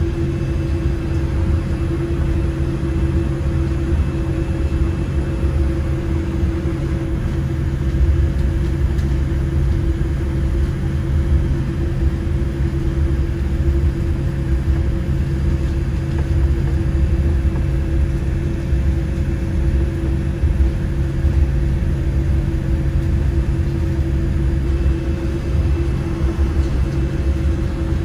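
Steady low rumble with a constant hum inside a Boeing 787-8 airliner cabin, taxiing out for takeoff.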